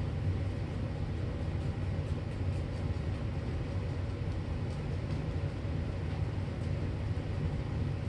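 Steady low hum of a room ventilation fan, with a few faint scratches of sand being rubbed into carpet by hand.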